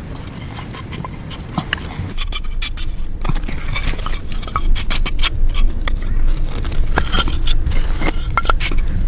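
Building work by hand: irregular taps, clicks and scrapes over a low rumble that grows louder about two seconds in.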